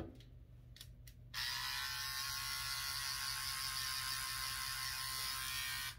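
Electric hair clippers switched on about a second and a half in, running with a steady buzz, and switched off just before the end. A couple of faint clicks come just before they start.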